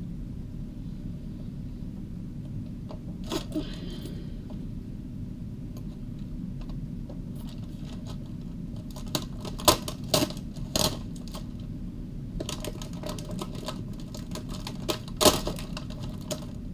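Small clicks and clinks from handling things close to the microphone, over a steady low hum. There are a few about three seconds in, a loud cluster around ten seconds in, and a denser run near the end.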